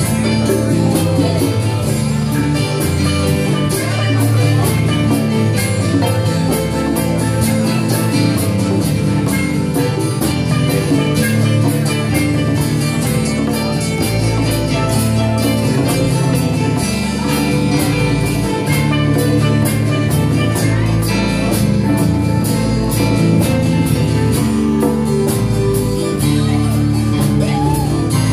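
Live band playing a jam with acoustic guitar, electric bass guitar and hand drums over a steady beat.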